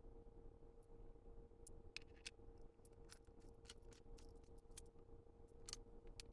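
Near silence: a faint steady hum, with a few light, scattered clicks as the parts of a hydraulic pressure test kit and its hard case are handled.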